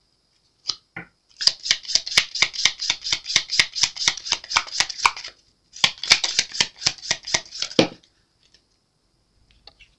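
A deck of oracle cards being shuffled by hand: two runs of rapid clicking flicks, with a short pause between them about halfway through.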